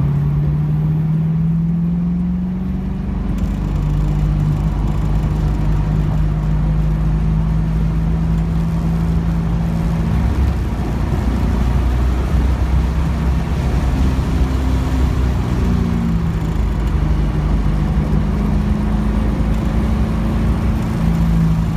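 1975 Pontiac Trans Am's V8 engine heard from inside the cabin, driving under power. Its pitch climbs in the first seconds, drops sharply about three seconds in, then holds fairly steady with several further rises and falls over a constant low rumble.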